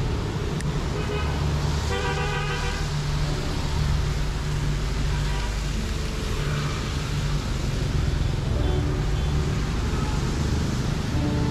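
City street traffic: a steady drone of engines, with a horn honk about two seconds in and a few shorter, fainter beeps.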